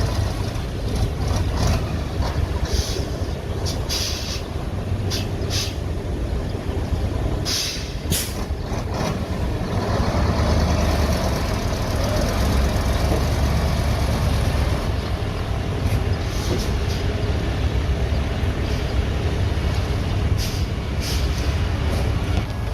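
Heavy diesel earthmoving machinery running steadily under load, getting louder about ten seconds in, with short hissing bursts now and then.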